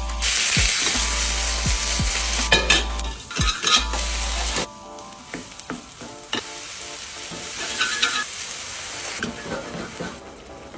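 Chicken frying in hot oil: a loud, steady sizzle that drops off sharply about halfway through, then swells again briefly near the end. Background music plays underneath.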